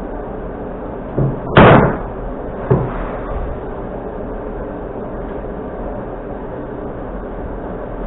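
A long wooden board landing on the workbench with one loud knock about one and a half seconds in, with lighter knocks just before and about a second after, over a steady background noise.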